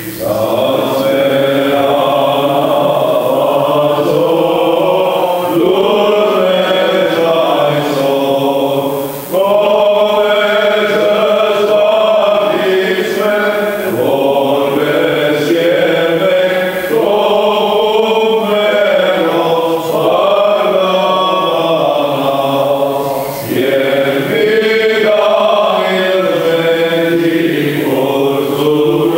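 Armenian clergy chanting a requiem hymn: men's voices singing long, gliding liturgical phrases together, with brief pauses for breath about nine and twenty-three seconds in.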